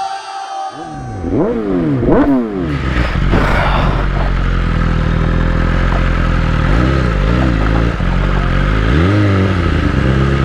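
BMW S1000RR's inline-four engine revved in quick blips that rise and fall in pitch, then running steadily, with more rev blips about two-thirds in and near the end.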